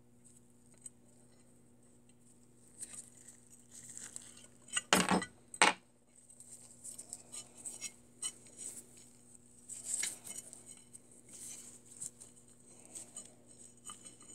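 Metal clinks and knocks from an old Walworth Stillson pipe wrench being handled and worked apart on a wooden workbench, its parts knocking against each other and the bench. Two loud knocks come about five seconds in, and scattered lighter clinks follow.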